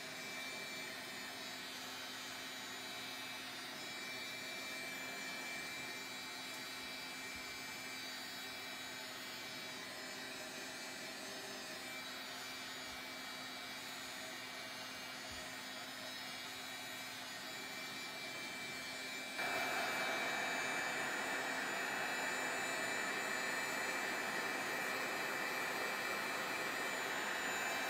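Handheld craft heat tool (heat gun) blowing steadily, drying wet stain on painted cards, with a steady whine in its rush of air. About two-thirds of the way through it gets clearly louder and stays so.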